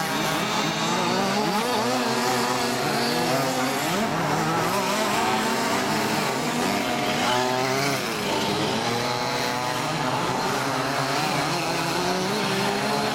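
Several large-scale RC Baja buggies' small two-stroke petrol engines racing together, each revving up and easing off, their pitches rising and falling and overlapping.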